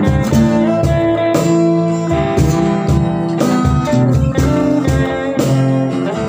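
Background music: an instrumental passage of an Indonesian pop love song, guitar over a steady beat of about two strokes a second.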